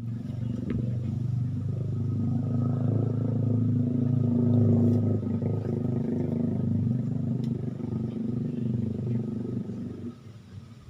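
A small engine running with a low, steady drone, loudest around the middle and fading out near the end.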